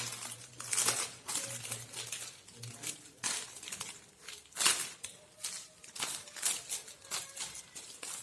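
Plastic and foil packaging of party decorations rustling and crinkling as it is handled, in irregular crackles of varying loudness.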